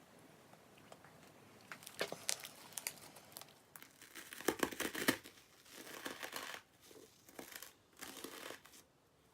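Slime mixed with crushed Banana Kick corn puffs being squeezed and pressed, the snack pieces crackling and crunching in spells. It starts about two seconds in, is loudest around the middle, and stops shortly before the end.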